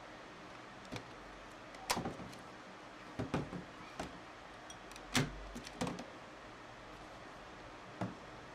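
Irregular light clicks and knocks of plastic and metal casing parts being handled and pried as a Sony NX5 camcorder is taken apart, about ten taps in all.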